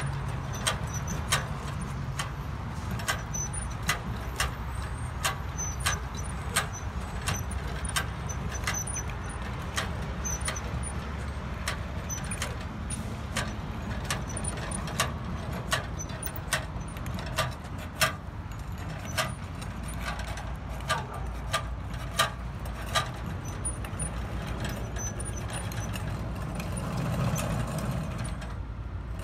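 Propane-fired crack-sealing cart being worked over asphalt: irregular sharp metallic clicks and rattles, about one or two a second, over a steady low rumble.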